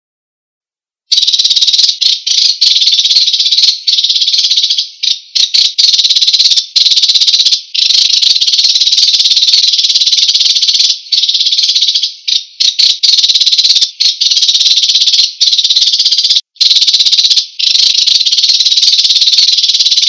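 Sparrow song: a loud, fast, dry trill that starts about a second in and runs on almost without a break, interrupted only by short gaps.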